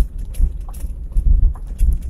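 Cabin noise of a Perodua Kembara driving over a bumpy gravel estate track: an uneven low rumble from the tyres and suspension over the ruts, with scattered clicks and rattles.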